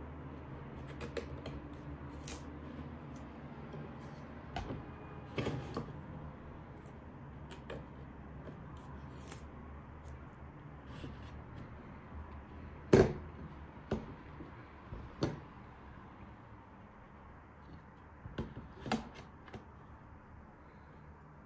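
Scattered clicks and knocks of small hardware being handled, over a low steady hum. About thirteen seconds in comes one sharp knock, the loudest; a few smaller ones follow over the next seconds.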